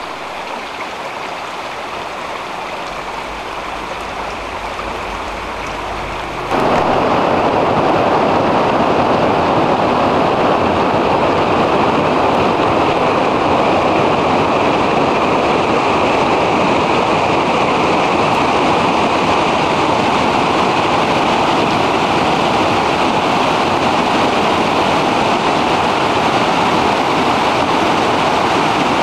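River water flowing over granite ledges and small rapids: a steady rush, fainter at first and stepping up to much louder about six and a half seconds in.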